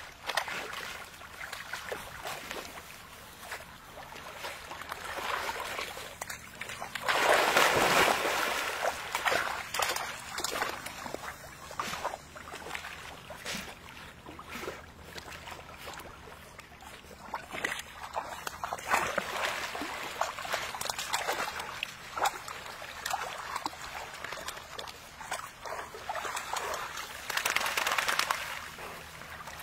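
Pond water sloshing and splashing as Labrador puppies and an adult Labrador swim, with three louder spells of splashing, the biggest about a quarter of the way in and the last near the end.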